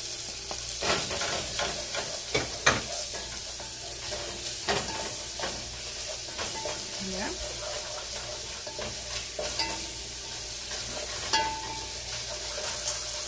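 A refrito of onion, butter and garlic paste sizzling in an enamel pot while a wooden spoon stirs it, scraping and knocking against the pot several times.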